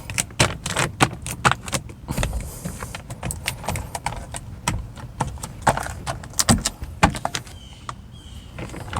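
Rapid, irregular clicking and rattling of door latch cables and small parts being handled inside a car door, easing off near the end.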